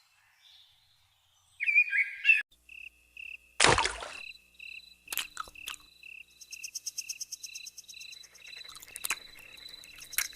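High, short chirps repeating two or three times a second, with a single sharp knock about four seconds in. A fast, very high insect-like trill joins about halfway through.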